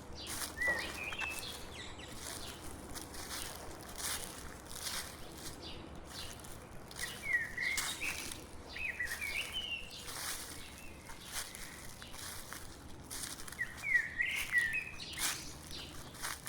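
Footsteps crunching steadily through dry fallen leaves on a forest path, while a songbird sings a few short phrases of quick warbling notes, once near the start, twice in the middle and once near the end.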